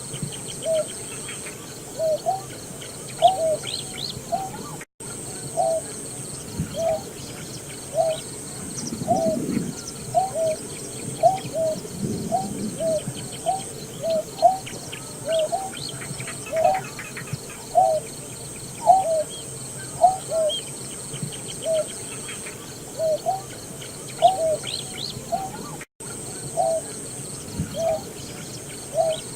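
Greater painted-snipe calling: a long run of short, low hooting notes, often in pairs, about one or two a second. Faint chirps of other birds sound behind them.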